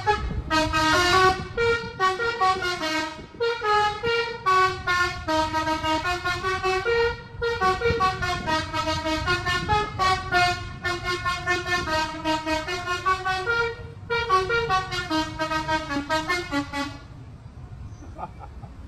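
Bus 'telolet' musical air horn playing a quick tune of short notes of changing pitch, in several phrases with brief pauses, stopping near the end.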